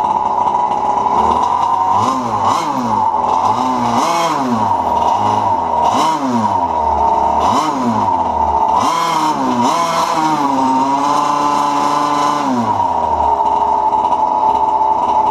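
Losi MTXL's two-stroke gas engine running on a stand, revved in about half a dozen short throttle blips, then held at a higher rev for about two seconds before it drops back to a steady idle.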